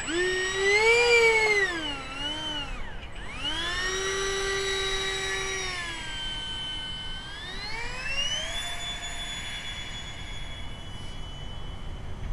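Electric ducted-fan motor of an RC jet whining, its pitch rising and dipping with the throttle before cutting out about three seconds in. It spools up again and eases off, then climbs to a steady high whine at full throttle around eight seconds in, for the takeoff.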